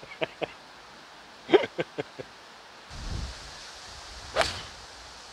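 A golf club striking the ball off the tee about four seconds in, one sharp crack, with gusts of wind on the microphone over the second half. A few short clicks and knocks come earlier, the loudest about a second and a half in.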